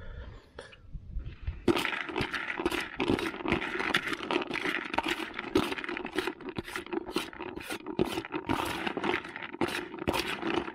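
Perforated metal skimmer spoon stirring sweet corn and dumbbell baits soaked in liquid in a plastic bucket: a continuous wet scraping and clicking of the kernels and pellets against the bucket, starting about two seconds in.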